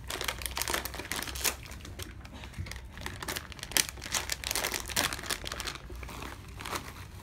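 Yellow plastic spoon stirring instant noodles and toppings in a Pop Mie cup, with irregular scraping and clicking against the cup and the peeled-back foil lid crinkling.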